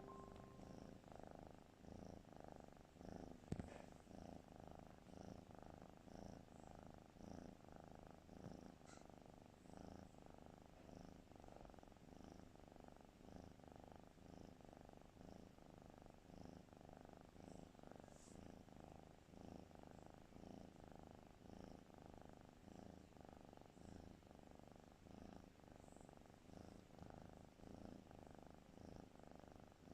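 Cat snoring, a faint rumble repeating evenly. A single sharp click about three and a half seconds in.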